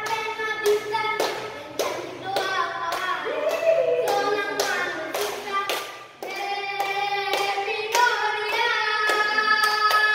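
A young boy singing held, high notes while adults clap along to the beat, about two claps a second.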